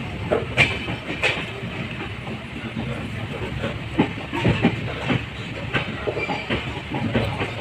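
Passenger train running along the track: a steady rumble with irregular clacks and knocks of the wheels over the rails.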